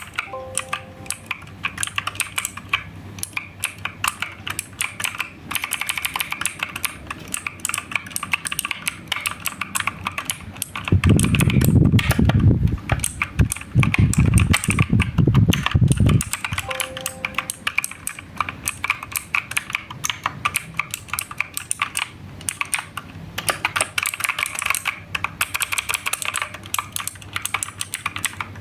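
Fast typing on a 60% mechanical keyboard with clicky blue switches: a dense, continuous clatter of key clicks. About eleven seconds in comes a stretch of louder, deeper thumping that lasts about five seconds.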